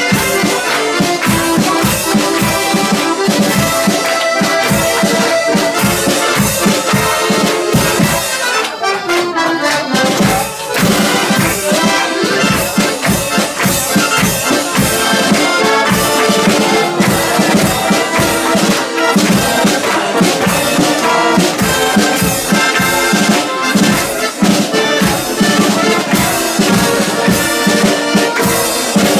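A Swabian carnival (Fasnet) band with accordion and brass plays a lively tune with a steady beat, and the crowd claps along. About nine seconds in, a long downward slide is heard.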